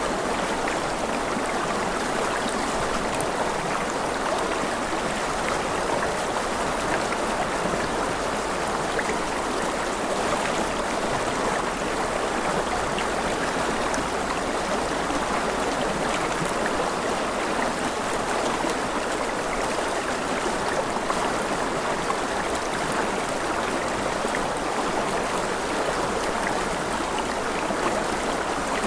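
Steady flowing water of a stream, an even rushing and trickling that does not let up, with a few faint ticks now and then.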